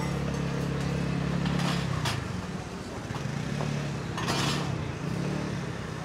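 Busy night-market street noise: a steady low engine-like hum with faint background chatter, and two short hissing or clattering bursts, about two seconds in and again a little past four seconds.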